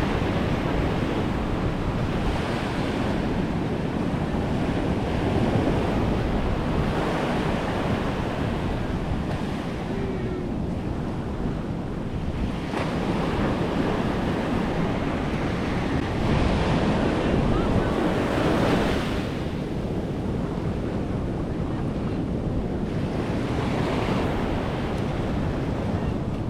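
Ocean surf breaking and washing up the beach, swelling every few seconds, with wind buffeting the microphone.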